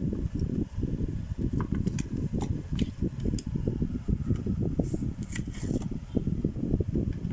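Plastic blister packaging and cardboard backing of a die-cast toy car crinkling and clicking as they are handled and pulled apart, with bursts of crackle around the middle and again about five seconds in. Under it runs a constant low rumble of background noise.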